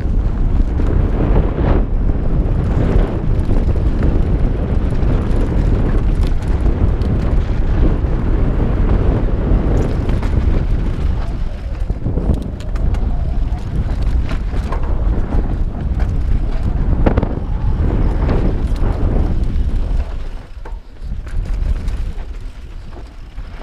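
Wind buffeting a GoPro microphone as a Santa Cruz Bronson mountain bike is ridden along a dirt trail, with rattles and knocks from the bike over rough ground. The noise eases off a little near the end.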